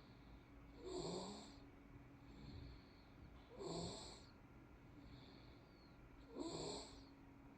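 A three-and-a-half-month-old baby snoring in its sleep: three small snores, evenly spaced about every three seconds, with fainter breaths between them.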